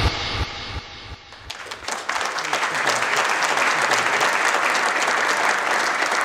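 An audience applauding, starting about a second and a half in as the end of an electronic intro music track dies away.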